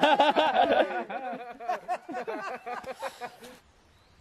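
Men laughing, a run of quick, pulsing bursts that dies away after about three and a half seconds.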